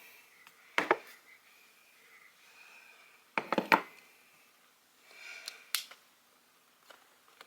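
Jar candles being handled and set down on a hard surface: a few sharp knocks, the first about a second in, a quick pair a little past the middle and one more near the end, with quiet handling rustle between.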